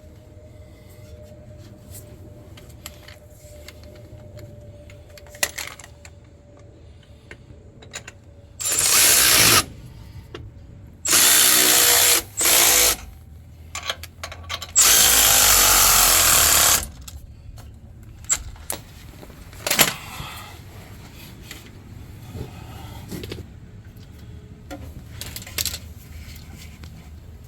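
A power tool runs in three bursts of one to two seconds each, the middle one briefly broken, as bolts are driven during an air-bag suspension install. A few sharp clicks and knocks are heard between the bursts.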